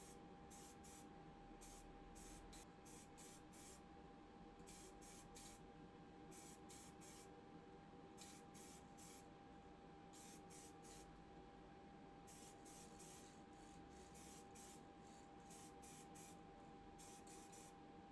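Faint short, irregular bursts of spray hiss as white primer is sprayed onto small model parts, over a faint steady hum.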